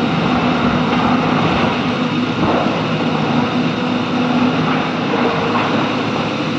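Heavy diesel engines running steadily as an excavator loads a tipper truck, a constant engine drone.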